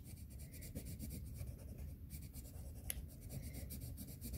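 Colouring stick scrubbing on paper in quick short strokes, blending a light green over earlier colour; faint, with one sharp click about three seconds in.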